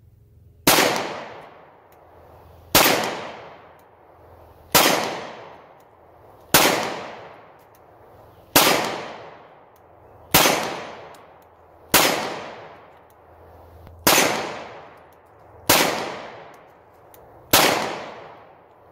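Ten single shots from a Polymer 80 Glock-pattern 9mm pistol, fired slowly about two seconds apart. Each is a sharp crack followed by a fading echo. The pistol cycles all ten rounds without a malfunction.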